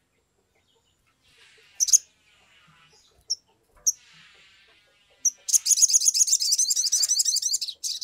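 Olive-backed sunbird singing: a few sharp, high single chirps, then a rapid high trill of about two seconds near the end.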